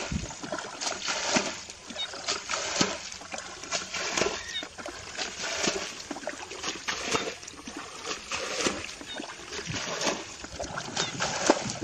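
Light, irregular splashing of shallow muddy water, a few small splashes and knocks a second.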